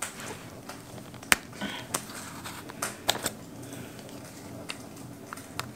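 Scattered light clicks and taps of a plastic cosmetic tube and its packaging being handled and opened, several in quick succession about halfway through.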